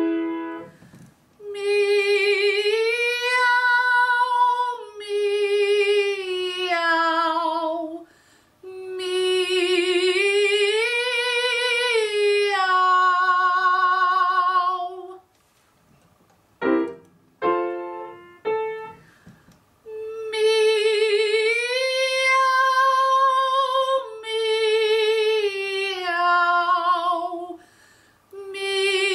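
A woman singing three long phrases with vibrato, each stepping up a few notes and back down, with a few short piano notes between the second and third phrase.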